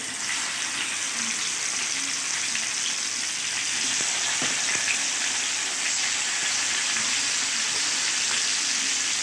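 Marinated chicken pieces sizzling as they fry in hot oil, a steady sizzle that gets a little louder as more pieces go into the pan.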